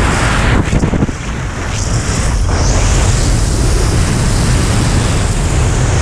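Wind rushing and buffeting on the camera's microphone at speed-flying airspeed, loud and steady, with a short lull about a second in before it builds back up.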